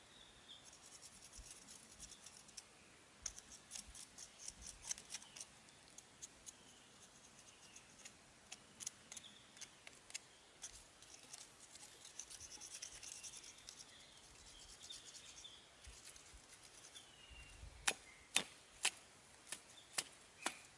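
Dry scraping in repeated strokes as the charred skin of a fire-roasted goat trotter is scraped clean with a stick. In the last few seconds come sharp chops of a heavy curved blade into the trotter, about two a second.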